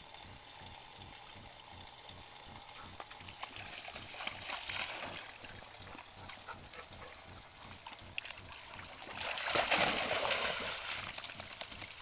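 A dog wading through a shallow pond, splashing, over water trickling steadily from a pipe into it. The loudest splashing comes about nine seconds in and lasts a couple of seconds as the dog surges out of the water.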